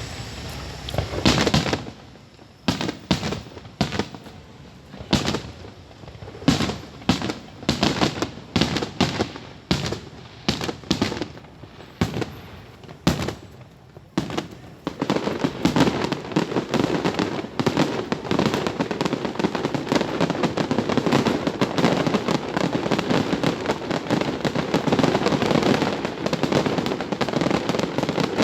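Fireworks display: separate aerial bursts banging one after another, roughly one or two a second, then from about halfway a dense, continuous run of rapid bangs and crackling.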